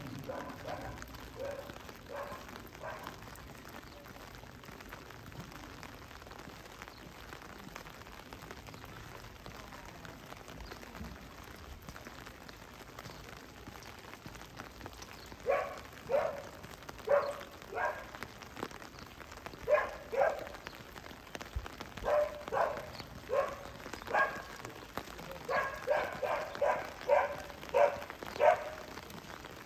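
Steady rain patter, and from about halfway a dog barking over and over in quick runs of short barks, louder than the rain.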